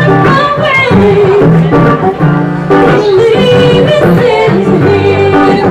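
Woman singing with a live band, her voice sliding and holding long notes over steady low bass accompaniment.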